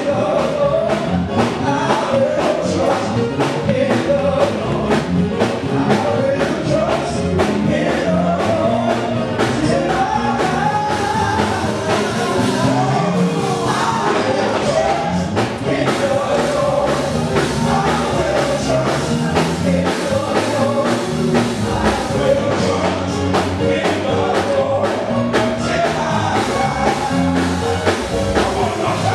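A man singing a gospel song through a microphone over band music with a steady drum beat.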